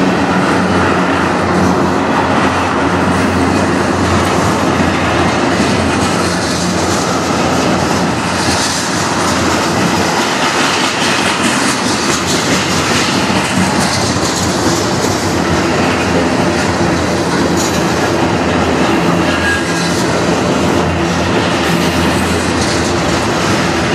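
Freight train tank cars rolling past at speed, their steel wheels running on the rails in a steady, continuous rumble and clatter.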